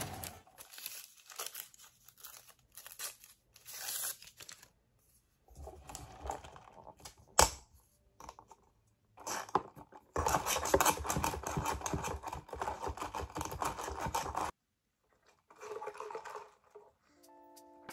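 Small handling noises in a small room: rustling, crinkling and scraping, with one sharp click about seven seconds in. The sound changes abruptly twice, as between cut-together clips.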